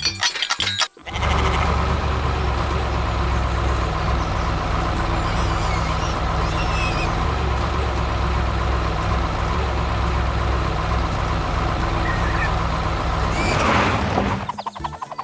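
A large vehicle's engine running steadily, starting about a second in after a brief clatter and stopping near the end.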